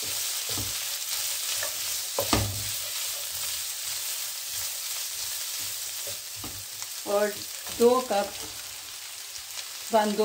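Shredded chicken and julienned carrots sizzling in a nonstick frying pan while a wooden spatula stirs them, with a few knocks of the spatula against the pan. About seven seconds in, a few short voice-like sounds stand out above the sizzle.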